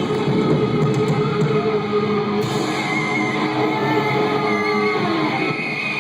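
A live rock band playing an instrumental passage, with electric guitar prominent over the full band at a loud, steady level.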